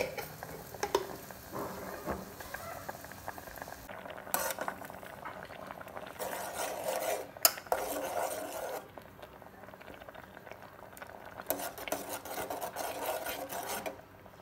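A metal spoon stirring and scraping thick tamarind and date pulp in a steel pot as it simmers, with clinks of spoon against the pot, in several spells of stirring.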